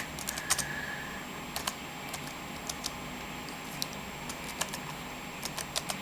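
Typing on a netbook keyboard: irregular, separate key clicks, with a quicker run of keystrokes near the end.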